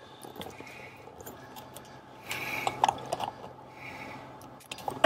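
Scattered clicks and rattles, with a short rustling stretch about halfway through, over a low steady hum.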